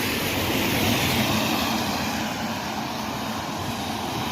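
Steady rushing engine noise of a passing vehicle, swelling slightly about a second in.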